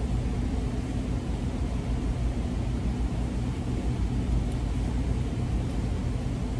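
Steady low background rumble with a faint droning hum.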